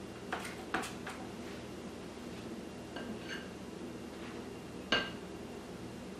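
Spoon clinking against a batter bowl and baking pan while scooping cake batter: a few light taps in the first second, a ringing clink about three seconds in and a louder one about five seconds in, over a steady low hum.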